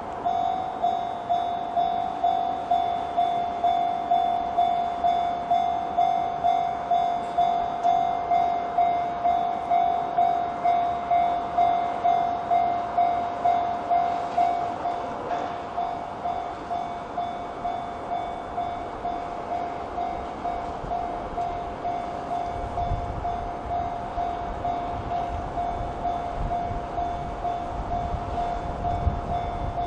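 Japanese railway level-crossing alarm of the 'Chichibu' type, a single-pitched electronic ding repeating at an even pace to warn that a train is coming. About three-quarters of the way through, the low rumble of a Sotetsu Line train running over the crossing joins in.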